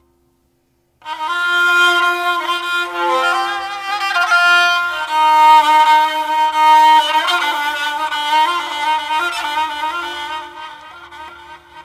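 After about a second of silence, a kamancheh (Persian bowed spike fiddle) plays a flowing melody with sliding notes over a steady low drone, fading toward the end.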